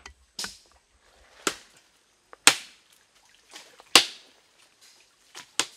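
A machete chopping through branches and tangled vegetation, about seven sharp strikes at irregular intervals, the loudest two in the middle.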